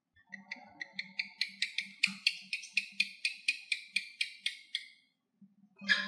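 Asian house gecko calling: a run of about twenty quick chirping clicks, roughly five a second, that builds up and then fades. A second run of chirps begins near the end.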